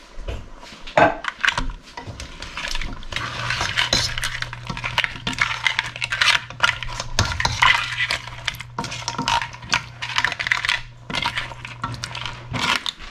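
A spoon and crab shells scraping, knocking and clattering in a stainless steel pan as crab, vegetables and coconut milk are stirred, with many quick clinks. A low steady hum runs under it from about three seconds in until near the end.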